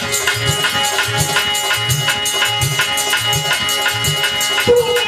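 Devotional accompaniment music: a steady drum beat of about two strokes a second under continuous shaker-like rattling percussion and a sustained held chord.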